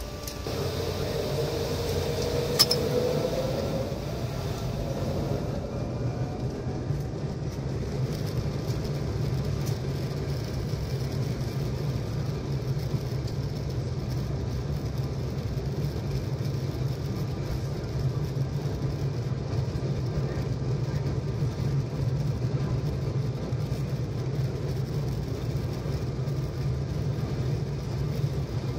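Airbus A320 jet engines heard from inside the cabin during the takeoff roll. The engine whine climbs in pitch over the first few seconds as they spool up, then the engines and the wheels on the runway keep up a steady rumble. There is a single sharp click about two and a half seconds in.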